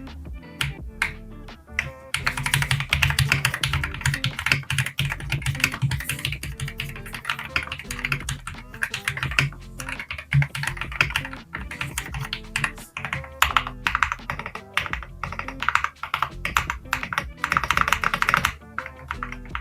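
Fast typing on a mechanical keyboard with Kailh Super Speed Red linear switches: a few separate keystrokes, then from about two seconds in a quick continuous run of key clacks. Background music plays underneath.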